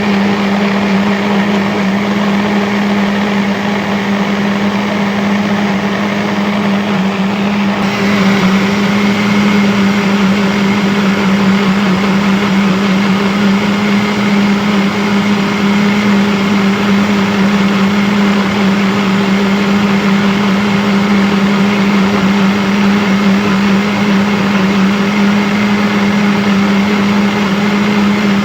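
Electric blender motor running steadily: a continuous hum with a strong low tone over a whirring noise, its tone changing slightly about eight seconds in.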